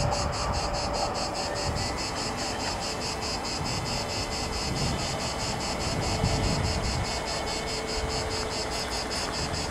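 Insects chirping in rapid, even pulses, several a second, over low wind rumble. From about three seconds in there is a faint steady hum as the level crossing barriers lift.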